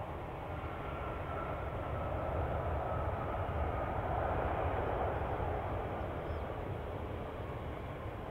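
Airbus A350's Rolls-Royce Trent XWB turbofans at low taxi thrust: a steady rumble with a faint whine, swelling a little midway and easing again near the end.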